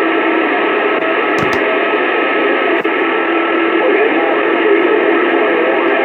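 Two-way radio channel held open with no one talking: a loud, steady hiss of static, cut off above the upper voice range, with a few faint steady humming tones in it.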